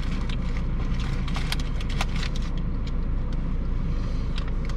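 Steady low rumble with scattered short crisp clicks and crunches of people eating tacos.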